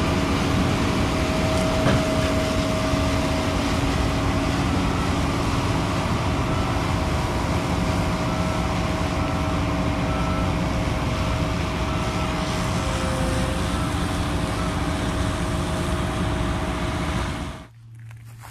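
Combine harvester and tractor running steadily as the combine unloads grain into a trailer, a loud even machine noise with a faint steady hum in it. It drops away suddenly near the end.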